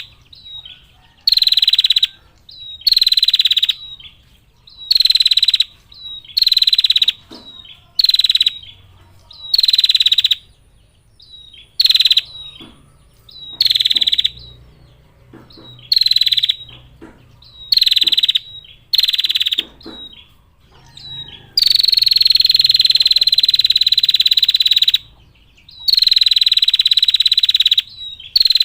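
Female prinia (prenjak) giving its high, rapid buzzing trill call over and over: short trills of under a second, about one a second, each dropping slightly in pitch, then one long trill lasting three to four seconds about two-thirds of the way through.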